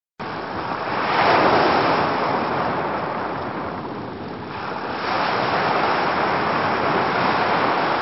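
Ocean surf on a shore: waves breaking and washing in a steady rush of noise. It starts abruptly after a moment of silence, swells with one wave about a second in and eases off, then swells again with the next wave about five seconds in.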